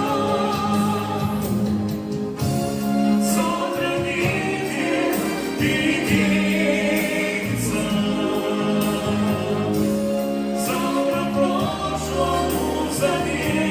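Music: a break between verses of a pop song, with held chords and choir-like singing over cymbal strokes.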